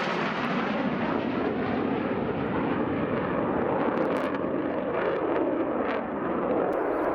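Jet noise of a Mitsubishi F-2 fighter's single turbofan after a low pass: a steady rushing roar whose hiss slowly dulls as the jet moves away. A few faint cracks come through past the middle.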